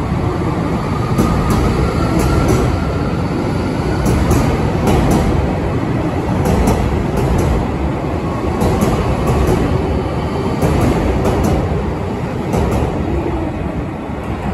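Electric multiple-unit commuter train running past close by: a steady rumble of wheels on rail, with pairs of clicks as the wheels cross rail joints. It eases off slightly near the end.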